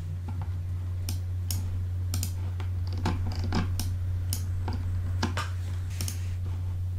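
Irregular clicks of a computer keyboard and mouse, about two a second, over a steady low electrical hum.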